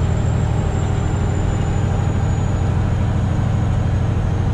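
Steady low drone of a Freightliner Classic XL semi truck's diesel engine with road noise, heard inside the cab while cruising on the highway.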